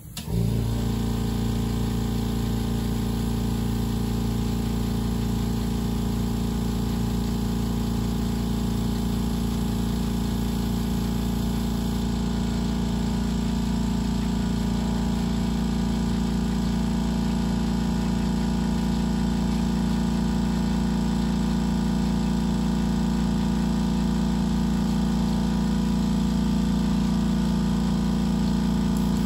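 Airbrush air compressor switching on abruptly and then running with a steady electric motor hum.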